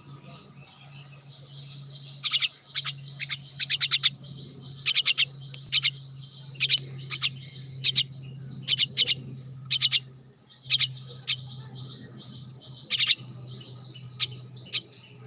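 Bird chirping: sharp, high chirps in quick clusters of two to four, repeating about every second from about two seconds in, over a steady low hum.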